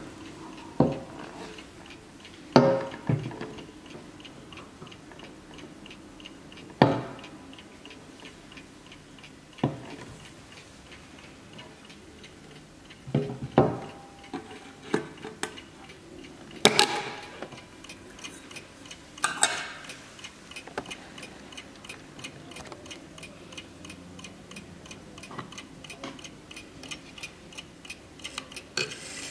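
Vintage Hermle mantel clock's mechanical movement ticking steadily, with a dozen or so louder knocks and bumps as the clock case is handled and turned around.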